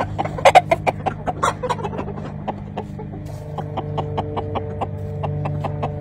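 A Savala gamefowl rooster clucking in a quick, loud burst during the first couple of seconds, over background music with held chords and a steady beat.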